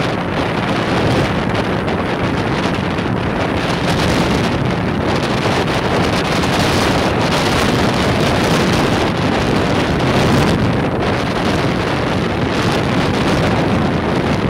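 Steady wind buffeting the microphone as an inflatable boat runs at speed, over the running of its Golfstream (Parsun) T8 8 hp two-stroke outboard motor.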